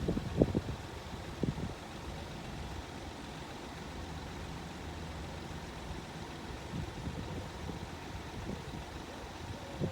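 A vehicle engine idling steadily at a low hum, with a few knocks dying away in the first half-second and a single thump near the end.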